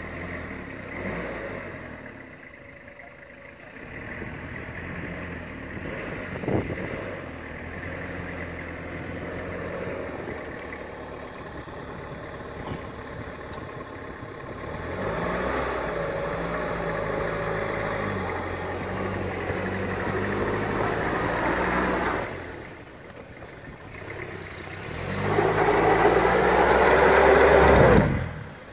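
Toyota Hilux 2.8 four-cylinder diesel engine revving under load as the pickup, in two-wheel drive, tries and fails to climb a dirt mound. The revs rise and drop in several pushes, with a single thump early on. The loudest push comes near the end and cuts off sharply.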